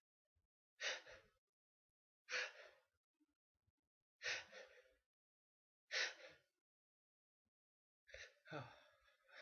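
A run of sneezes: four short, sharp sneezes evenly spaced about every second and a half to two seconds, followed near the end by a longer, partly voiced breathy sound.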